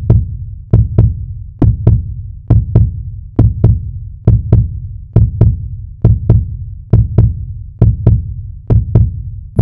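A heartbeat sound effect: deep double thumps, lub-dub, repeating steadily a little under once a second.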